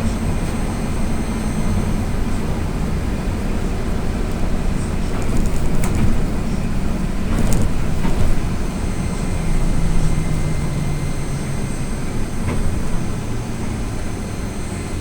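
Inside an AKSM-321 trolleybus on the move: steady running and road noise, with the electric traction drive's hum shifting in pitch. A few short rattles or clicks come about midway.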